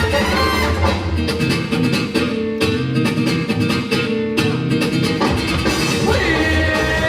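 Loud recorded dance-performance music with a steady beat, guitar and some singing; the track changes about five seconds in.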